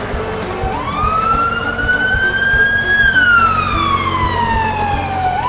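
A cartoon siren sound effect wailing: it swoops up about a second in, climbs slowly, then slides down over a couple of seconds and swoops up again at the end. Background music with a steady beat plays underneath.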